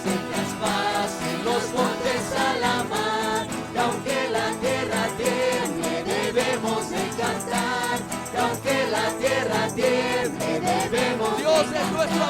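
Christian worship music: voices singing a melody over a steady instrumental backing.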